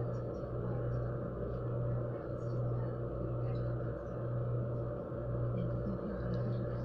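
Steady low hum and rumble of room noise, swelling and easing slightly every second or two, with no one speaking.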